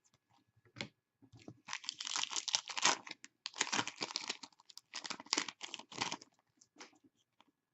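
Foil trading-card pack wrappers crinkling and tearing as packs are opened and handled, in three rustling spells with short breaks between them.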